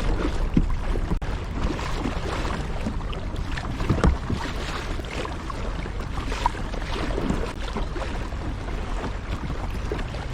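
Kayak paddle dipping and splashing in the water, with scattered small knocks, over a steady low rumble of wind on the microphone.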